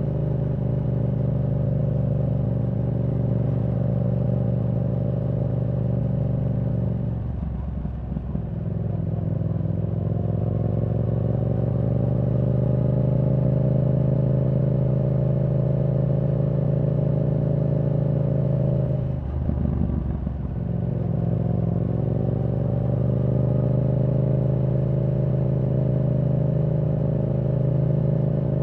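Yamaha R7's 689 cc parallel-twin engine, breathing through a Yoshimura R77 exhaust with the dB killer removed, running at a steady cruise. Twice, about seven seconds in and again about nineteen seconds in, the throttle is rolled off and the note drops and breaks up briefly, then the engine pulls again with its pitch slowly rising.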